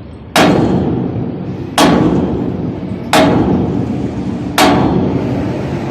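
Four heavy hammer blows on steel, evenly spaced about a second and a half apart, each ringing on and dying away before the next.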